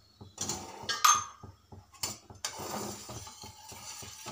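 Steel spoon clinking and scraping against a stainless steel saucepan of milk being curdled with lime juice, with a few sharp ringing clinks, the loudest about a second in.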